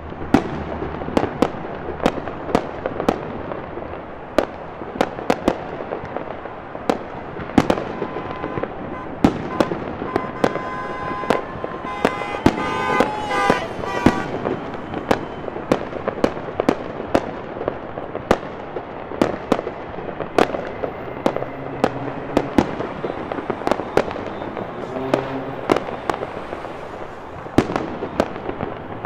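Fireworks and firecrackers going off in quick, irregular succession: many sharp bangs, often less than a second apart, over a continuous din. For a few seconds in the middle, wavering high tones sound along with the bangs.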